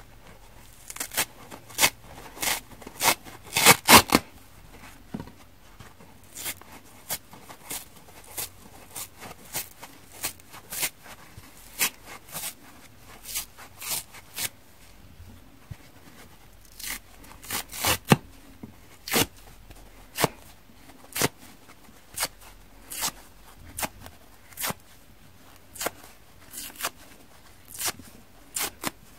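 Dry kitchen sponges torn apart by hand: the abrasive scouring pads ripped off the foam, then the soft foam sides ripped. A long run of short, sharp rips, roughly one every half second, loudest in a cluster a few seconds in.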